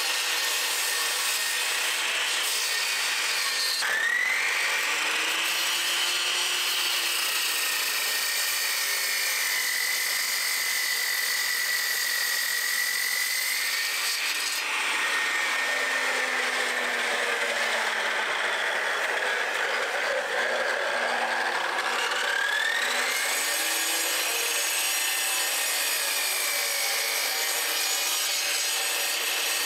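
Cut-off saw with a diamond blade grinding through a block of stone, a continuous harsh grinding with a high whine that sags and rises in pitch several times as the blade is worked through the cut.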